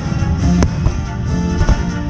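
Music with guitar and drums, with a couple of sharp cracks cutting through it, one about half a second in and one near the end.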